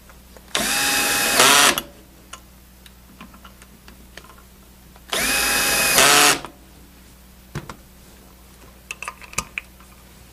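Cordless screw gun on a low torque setting driving the screws into two manifold valve handles: two runs of about a second each, a few seconds apart, the motor whine rising as it spins up and then holding. Light clicks and taps follow near the end.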